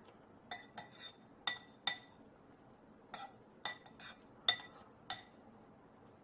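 Metal fork clinking against the sides of a glass bowl while stirring rehydrating freeze-dried scramble, about nine irregular ringing clinks, the loudest about four and a half seconds in.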